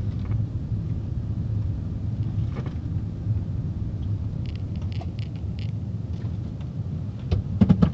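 Steady low rumble of a car driving slowly, its engine and road noise heard from inside. A few faint clicks sound in the middle, and a few louder knocks come near the end.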